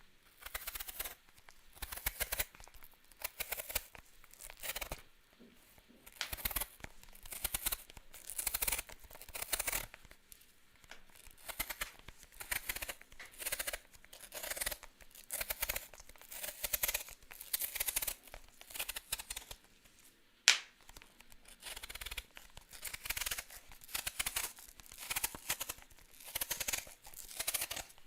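An apple being peeled: a run of short rasping strokes as the blade cuts through the skin, each lasting about a second with short pauses between them. One sharp click comes about twenty seconds in.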